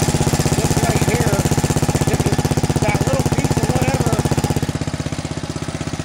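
Small tractor's engine running steadily with a rapid, even firing beat. The belt drive's newly repaired idler pulley runs without the earlier racket, pretty smooth.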